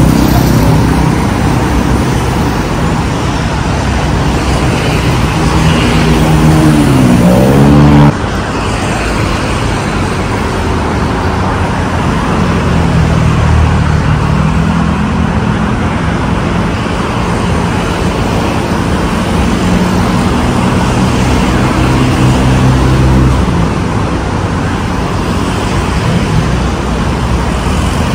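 Steady noise of busy multi-lane road traffic, cars and motorcycles passing, with one engine's pitch rising and falling about seven seconds in. The level drops suddenly about eight seconds in, then the traffic goes on steadily.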